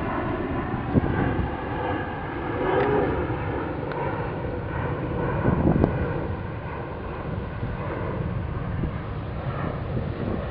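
Steady low rumble and hiss of wind buffeting the microphone, with a few faint knocks.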